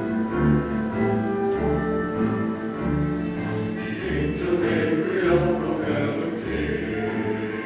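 Mixed church choir singing over an instrumental accompaniment with a steady, evenly pulsing bass; the instruments play alone at first and the choir comes in about halfway through.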